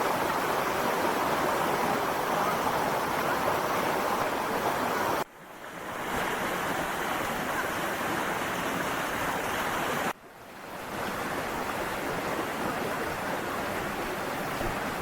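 Steady rush of water. It cuts out abruptly about five seconds in and again about ten seconds in, fading back up each time.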